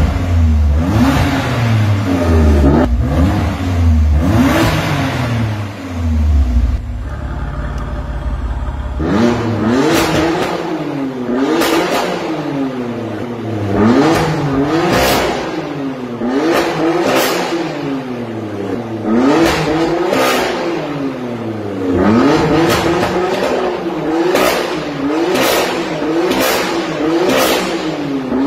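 BMW F82 M4's twin-turbo 3.0-litre straight-six revved again and again at a standstill through an Armytrix valved cat-back exhaust: repeated sharp blips, each climbing and falling back within a second or two. A deep low rumble under the first few revs drops away about nine seconds in.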